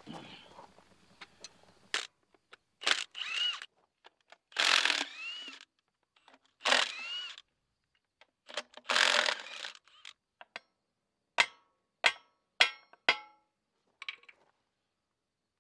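Cordless power driver run in four short bursts, spinning bolts out of a steel cover plate on the bulldozer, each burst with a whine that climbs in pitch as the motor spins up. Near the end, four sharp metallic clinks come about half a second apart.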